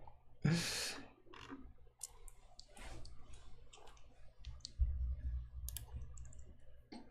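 Scattered light clicks of a computer keyboard and mouse, irregular and quiet, with a short breathy noise about half a second in.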